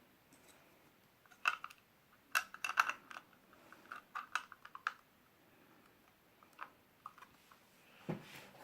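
Plastic LEGO pieces clicking and rattling as they are handled and pressed together, in irregular clusters of sharp clicks, with a duller knock near the end.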